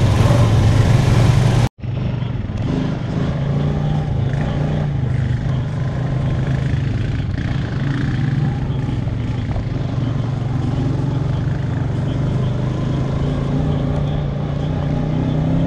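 ATV engine running steadily while the quad is ridden, a constant low drone. It cuts out for an instant about two seconds in and picks up again.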